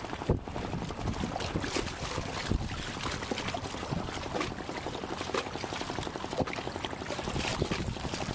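Seawater sloshing and splashing among concrete breakwater blocks, with irregular small splashes and knocks.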